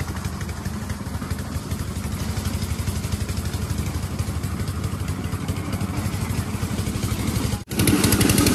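A motor engine running steadily with an even, rapid chugging pulse. It drops out for a moment near the end and comes back louder.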